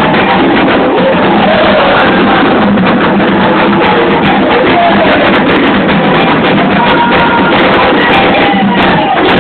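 Loud, continuous candomblé ritual music: a group of voices singing a chant together over hand-drum strokes.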